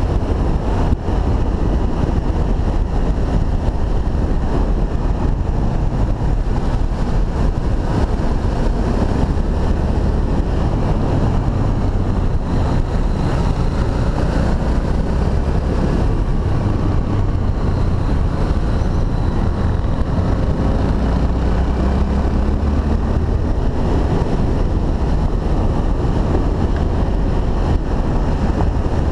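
Honda XRE300 single-cylinder motorcycle engine running steadily while riding, mixed with heavy wind buffeting on the microphone.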